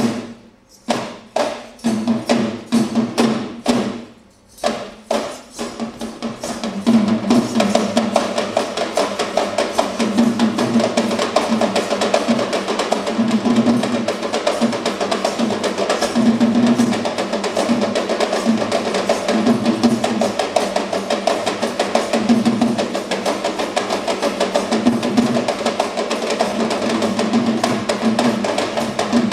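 Sri Lankan low-country barrel drums (yak bera) played with the hands for a dance. A few separate strokes with short pauses at first, then from about seven seconds in a fast, unbroken drumming pattern.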